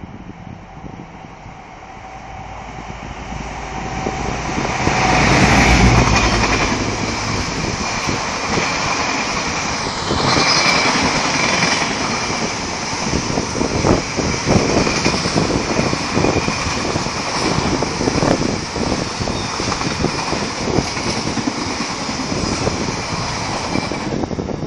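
Class 66 diesel-electric locomotive, its two-stroke EMD engine running, approaching and passing, loudest about six seconds in. A long rake of tank wagons then rolls by with a clatter of wheels and a steady high-pitched ring from the wheels on the rails. The noise drops away suddenly as the last wagon passes near the end.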